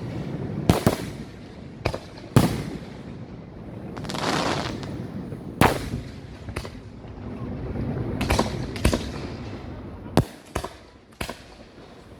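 Fireworks going off: about ten sharp bangs at uneven intervals, with a longer noisy rush swelling and fading near the middle.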